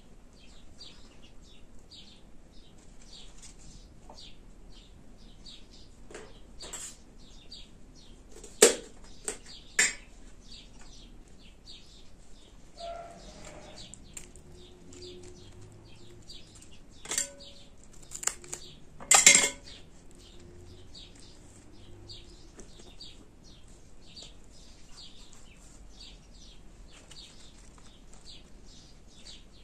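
Metal spoon and steel pot and tray clinking in a few sharp knocks, bunched about nine seconds in and again near twenty seconds, as rice filling is scooped out. Small birds chirp steadily and rapidly in the background.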